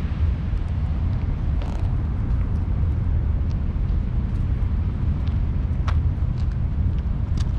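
Outdoor ambience: a steady low rumble of distant traffic, with a few faint sharp ticks.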